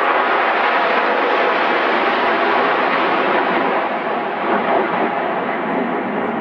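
Formation of military jet aircraft flying over: a loud, steady rushing jet noise that eases slightly near the end.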